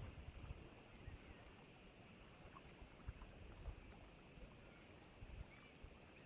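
Near silence: faint lakeside ambience with a few light gusts of wind on the microphone and some faint high chirps.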